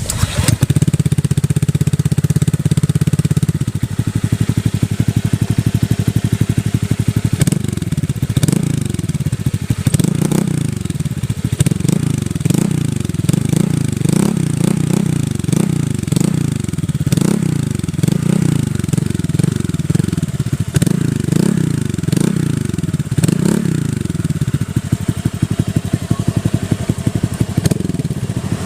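Honda Click 150i scooter's single-cylinder engine running through an Akrapovic-style aftermarket exhaust: a steady, loud note at first, then a long series of throttle blips, the pitch rising and falling about once a second.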